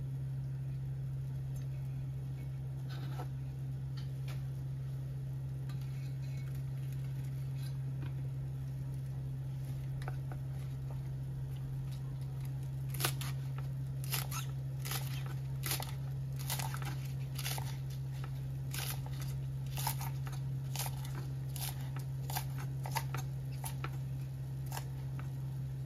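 Kitchen knife chopping a bundle of green herb stems on a wooden chopping board: sparse knocks of the blade at first, then irregular chops about once or twice a second from about halfway through, over a steady low hum.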